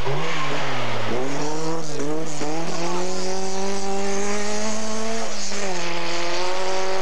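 Rally car engine revving hard: its pitch wavers, climbs from about one to three seconds in, holds high, then drops a step about five seconds in and runs on steadily.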